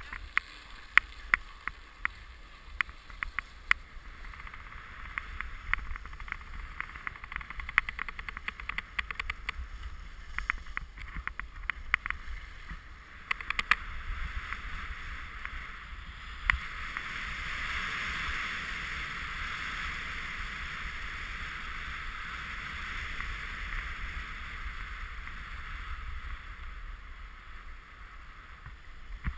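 Alpine skis sliding over packed snow, heard muffled through the GoPro's waterproof housing. A scatter of sharp clicks and knocks fills the first half, then past the halfway point a louder, steady hiss of skis running downhill takes over.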